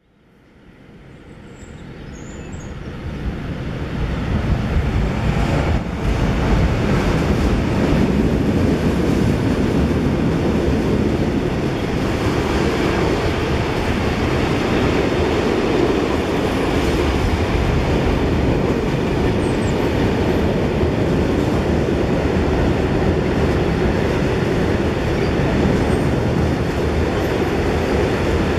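Freight train of tank wagons and covered goods wagons rolling past close by, its wheels making a steady loud rumbling roar on the rails. The sound swells up over the first four seconds or so, then holds.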